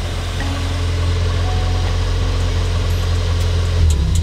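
Lifted rally Mazda Miata's four-cylinder engine running at low revs as the car creeps up close: a steady deep rumble that grows a little louder.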